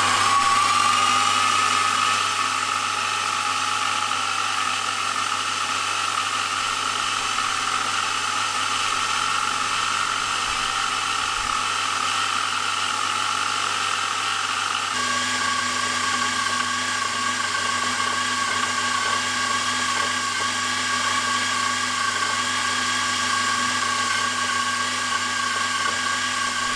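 Milling machine spindle running at high speed with a micro drill chuck, a 1/16-inch drill bit boring a pin hole through a steel crankshaft web. A steady high whine, just reaching full speed at the start.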